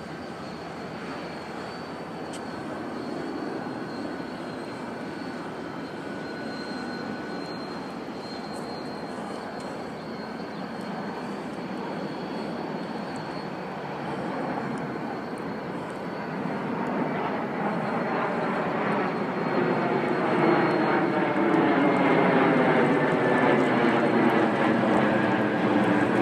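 Aircraft engine noise: a steady rumble that grows louder over the second half as the plane comes closer.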